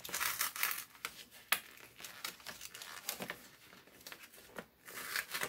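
A white paper envelope being handled and opened by hand: paper rustling and crinkling in short bursts, with one sharp tick about a second and a half in.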